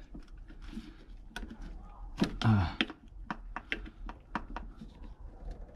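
Irregular light clicks and knocks of gloved hands working over a car engine's intake, handling hoses and fittings.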